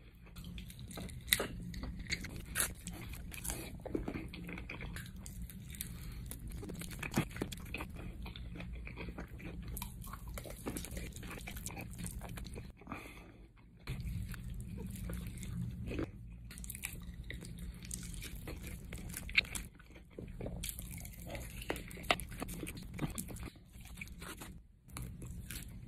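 Close-up biting and chewing of fried chicken wings, with repeated crunching and wet chewing.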